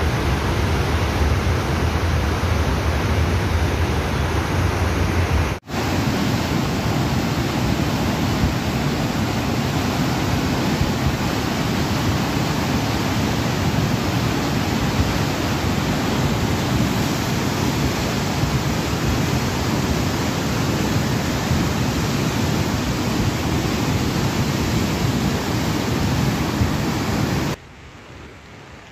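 The Beas River in full flood: a muddy torrent rushing steadily and loudly. There is a brief break about six seconds in, and near the end the sound cuts to a much quieter steady hiss.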